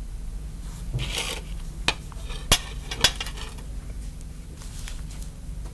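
A fork clinking and scraping on a breakfast plate, with a scrape about a second in and a few sharp clinks around two and three seconds in.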